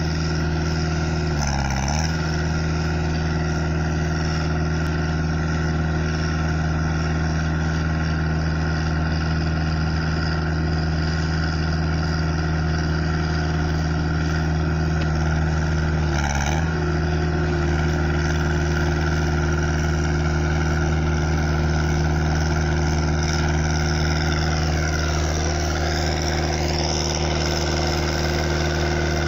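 Diesel engine of a Cifali asphalt paver running at a steady speed, its pitch sagging briefly twice as if taking up load. A fainter whine dips and rises again near the end.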